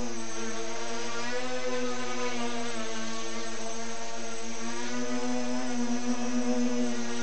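Tricopter's electric motors and propellers running in a hover while carrying a suspended RC glider on a line. A steady buzz whose pitch wavers slightly as the motors adjust.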